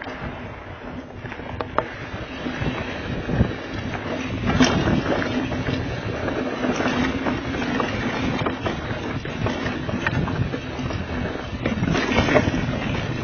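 Diamondback Mission 2 mountain bike rolling fast down a dirt trail: wind rushing over the microphone, tyres on dirt, and frequent knocks and rattles from the bike over bumps.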